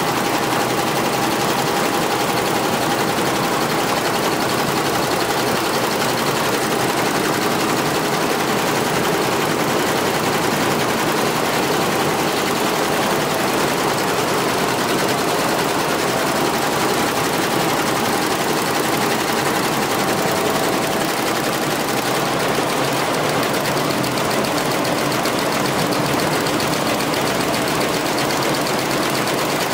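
Jintel multi-head computerised embroidery machine running, its needles stitching a pattern with a steady, rapid mechanical clatter and a faint hum.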